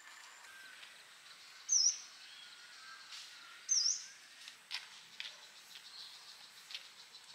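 A bird gives two short, high chirps about two seconds apart, each dipping and then rising in pitch, over fainter distant birdsong and scattered soft clicks.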